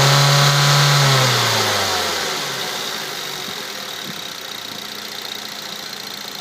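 Mazda 3 2.0-litre four-cylinder engine after a sharp throttle blip: held at raised revs for about a second, then dropping back to idle about two seconds in and idling steadily with a few faint ticks. The owner is chasing an unexplained ticking in this engine, which stays with the intake-manifold connector unplugged, with no oil use or power loss.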